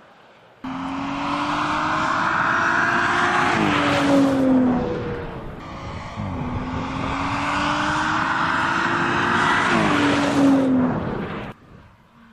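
2017 Audi S5 Coupe's turbocharged V6 accelerating hard twice. Each time the engine note climbs steadily, then drops in pitch at an upshift. Each run cuts in and ends suddenly.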